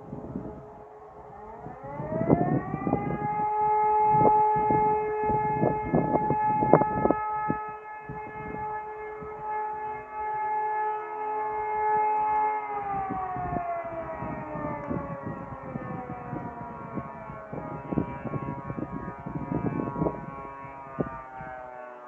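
Civil defence siren sounding a test: its pitch rises about two seconds in, holds one steady chord-like tone for about ten seconds, then slowly falls, still winding down near the end. Irregular low rumbling runs underneath.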